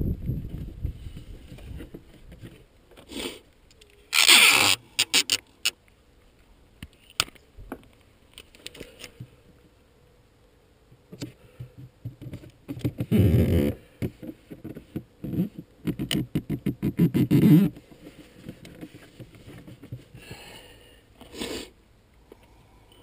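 Handling noise: bursts of rustling and scraping with scattered clicks and knocks as a hand moves over the plastic hull of an RC boat and the bags around it. The loudest rustle comes about four seconds in, and a run of rapid clicking and scraping follows later.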